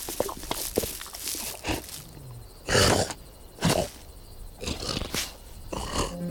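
Cartoon animal vocal sound effects: a series of short, rough grunts and growls, the loudest about three seconds in and another just before four seconds.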